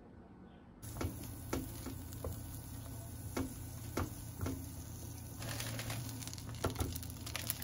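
Kitchen cooking sounds: scattered light taps and clicks of utensils, then a sizzling, crackling hiss of food frying in a pan that starts a little over two-thirds of the way in.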